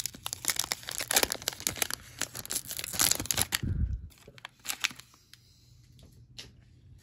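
Foil trading-card pack being torn open by hand, the wrapper crinkling and crackling for about three and a half seconds. A soft thump follows, then a few light clicks.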